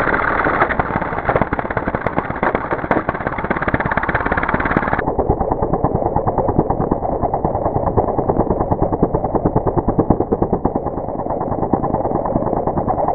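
Gas string trimmer's engine and whirling line, slowed down to a low, rapidly pulsing drone. About five seconds in it turns duller and lower.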